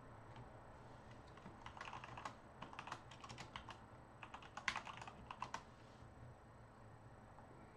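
Faint typing on a computer keyboard: three short runs of quick key clicks, stopping about six seconds in.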